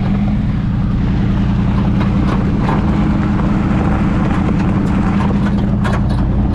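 Range Rover P38 driving over rough ground, its engine and drivetrain droning steadily with rattles and a few sharp knocks about six seconds in. The riders think something is wrong underneath.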